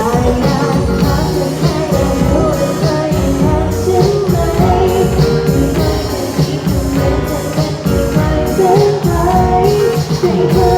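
A band playing a Thai pop-rock song: drums keep a steady beat of about two strokes a second under a melody line, with singing.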